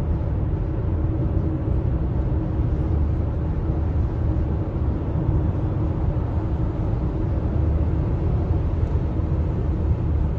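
Steady road noise of a car at highway speed heard inside the cabin: a low, even rumble of tyres on pavement and engine hum.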